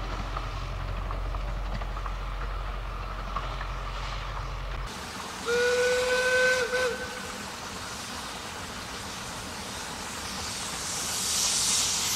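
Narrow-gauge steam locomotive's whistle blowing once, a single steady note lasting about a second and a half, from the Hunslet quarry tank engine Alice as it approaches. Near the end, steam hissing swells as the locomotive draws closer.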